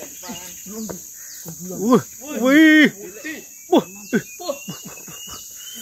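Steady high-pitched chorus of insects in the forest, with a voice calling out briefly about two to three seconds in.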